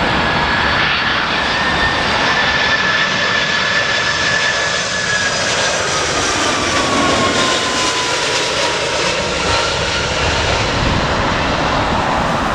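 Large jet airliner's engines passing: steady jet noise with a high whine that falls in pitch over a few seconds as the aircraft goes by. Strong wind buffets the microphone throughout.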